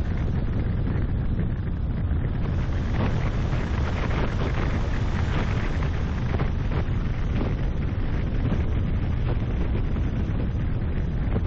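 A car driving over rough, patched asphalt, heard from a bonnet-mounted camera: steady wind buffeting on the microphone over low road and engine rumble, with frequent short knocks as the tyres hit bumps and broken patches.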